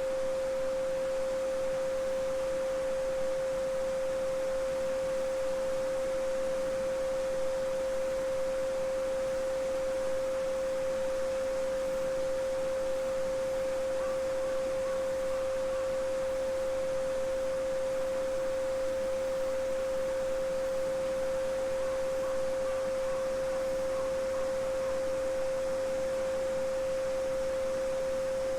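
A steady, unchanging 528 Hz sine tone, the so-called solfeggio frequency, held without a break over the faint even rush of a babbling brook.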